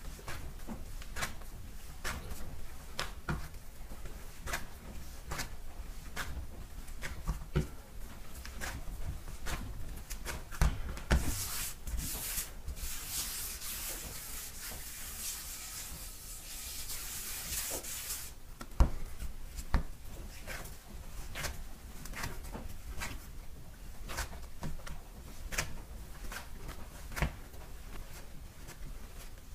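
Hands kneading buckwheat soba dough in a lacquered kneading bowl, to work out unevenness in the dough: soft presses and thuds about once a second. Midway comes about six seconds of quick rubbing, followed by one sharper knock.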